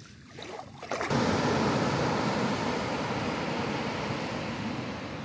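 Sea surf washing onto a sandy beach: a steady rushing of waves that starts suddenly about a second in and slowly eases.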